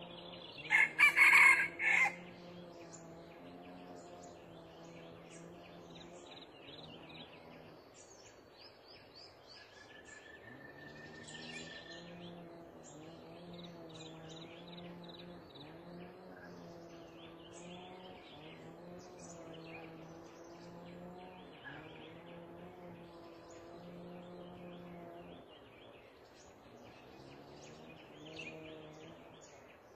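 A red junglefowl rooster crows once, about a second in: a short crow broken into a few pulses. Small birds chirp faintly throughout over a steady low hum.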